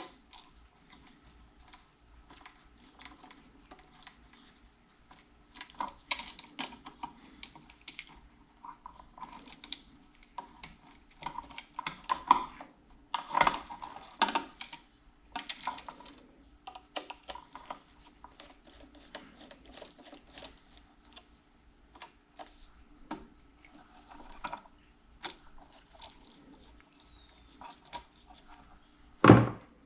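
Hand work with an insulated screwdriver on a wall outlet being taken out: irregular light clicks, taps and scrapes, with one louder knock near the end.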